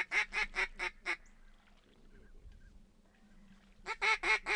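Duck call blown in mallard quacks: a run of about five loud, evenly spaced quacks, a pause of about three seconds, then another fast run of quacks starting near the end.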